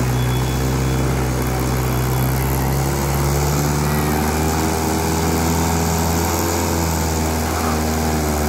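Mahindra 575 DI tractor's four-cylinder diesel engine running steadily at high revs, labouring under the load of a fully loaded trolley as it pulls up an incline.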